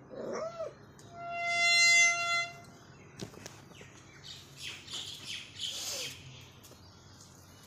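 A short meow from a ginger cat, then about a second in a long, steady, high squeal lasting about a second and a half as the iron grille gate swings open on its hinges. Birds chirp briefly afterwards.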